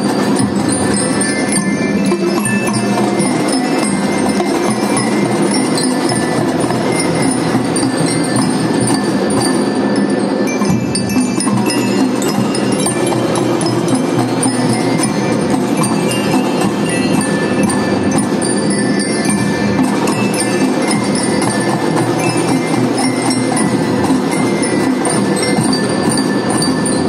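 Children's marching drum band playing a tune continuously: glockenspiels struck with mallets carry the melody over snare and bass drums.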